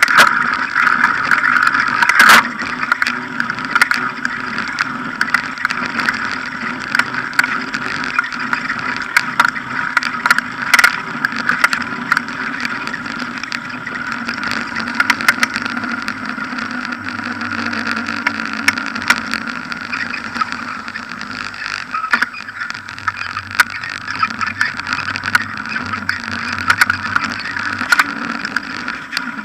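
A bicycle ridden over paved pavement, heard through an action camera mounted on the bike: steady rolling noise with frequent sharp knocks and rattles as the wheel and mount go over bumps in the surface.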